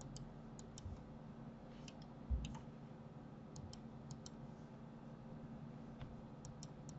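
Computer mouse clicking: faint, sharp button clicks, several in quick pairs, scattered through, over a steady low hum. A soft low thump about two and a half seconds in.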